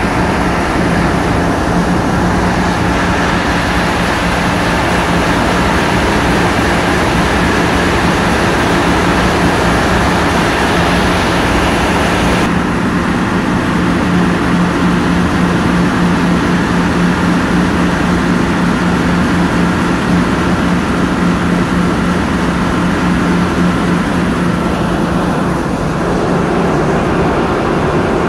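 Ship's engine running, heard on deck: a steady low hum under a constant rushing noise. The higher part of the sound changes abruptly about twelve seconds in while the hum carries on.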